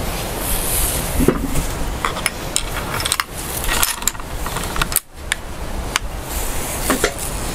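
Steady rain falling, with scattered sharp taps and clicks through it.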